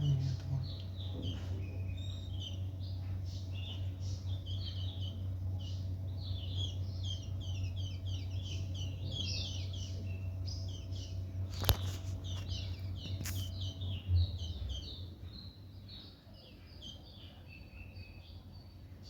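A flock of small birds chirping, many short high chirps overlapping in a dense chorus. A steady low hum sits underneath and fades out about three quarters of the way through, and a single sharp click comes about two thirds of the way in.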